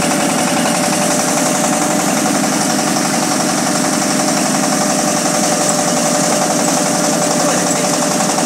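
Mobile rice milling machine running steadily under load as it mills rice, its engine and milling rotor making a continuous loud drone with a steady whine.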